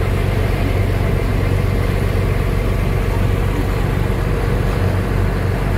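A boat's engine running steadily at a low, even hum as the boat motors along, with the rush of water and wind behind it.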